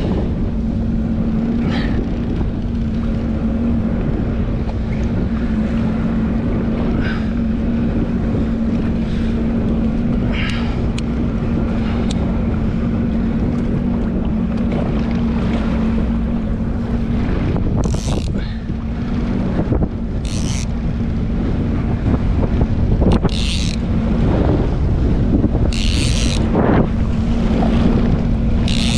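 Jet ski engine running steadily at one low pitch, under heavy wind buffeting on the microphone, with several short splashes of water in the second half.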